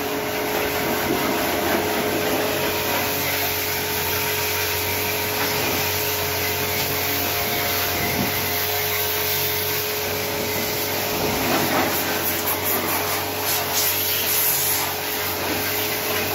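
Pressure washer running steadily: a constant motor hum under the hiss of the water jet spraying the metal floor and walls of a van's cargo area.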